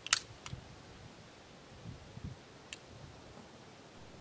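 Clicks of a Polish P-83 pistol being handled after a round failed to feed: one sharp metallic click just after the start, then fainter clicks and a few soft knocks.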